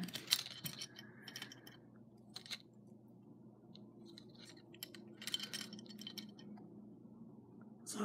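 Faint, scattered clicks, light metallic clinks and rustles as a metal Superman belt buckle and its cardboard packaging card are handled.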